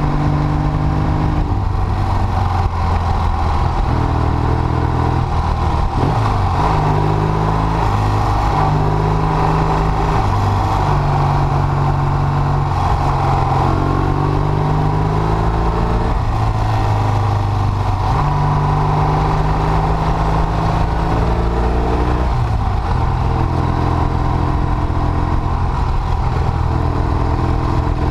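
Classic Triumph Bonneville's parallel-twin engine running under way on the bike. Its pitch steps up and down every few seconds as the rider changes gear and rolls the throttle on and off through the bends.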